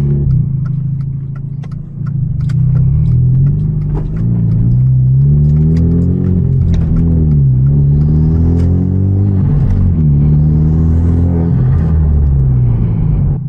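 Hyundai Genesis Coupe's turbocharged 2.0-litre four-cylinder running through a loud aftermarket exhaust, accelerating through the gears of its manual gearbox. The engine pitch climbs, drops sharply at upshifts about seven and a half and ten seconds in, climbs again, then falls off near the end as it eases off.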